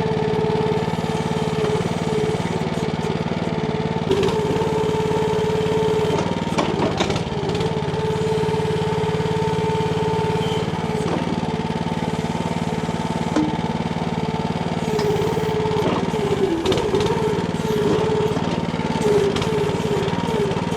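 Engine of a Timco ATV-570R towable backhoe running steadily, with a whine that comes and goes and shifts slightly in pitch as the hydraulics are worked. A few knocks from the digging are heard along the way.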